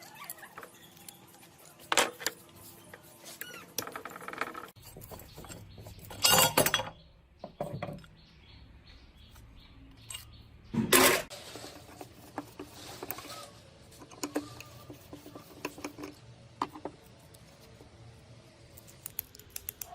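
Small metal parts and tools clinking, tapping and scraping as they are handled, irregularly, with a few louder noisy bursts, the longest lasting under a second, about six and eleven seconds in.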